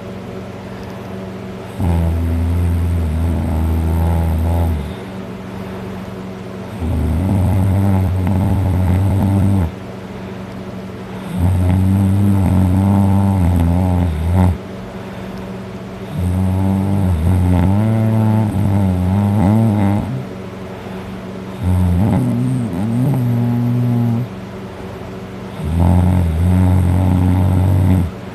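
A man heavily drunk and passed out on his back, snoring loudly: six long, deep, rumbling snores, each about three seconds, coming about every five seconds with quieter gaps between.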